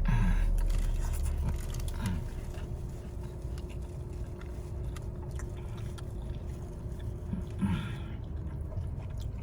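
Someone chewing and eating a meatball sub, with small scattered clicks and mouth noises over a steady low hum.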